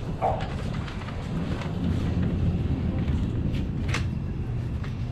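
Wind buffeting the microphone: a steady low rumble, with a few faint knocks.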